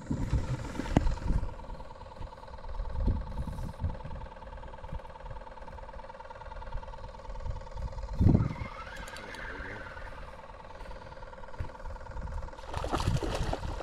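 Low rumble and knocks of wind and clothing rubbing against a body-worn camera's microphone, with a louder thump about eight seconds in, over a faint steady hum.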